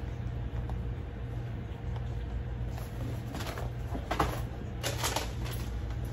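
A cardboard box and plastic food packets being handled, with a few brief rustles and crinkles in the second half, over a steady low hum.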